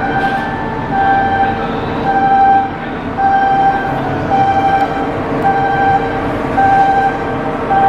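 A repeating electronic warning tone, beeping about once a second over a steady din of machinery.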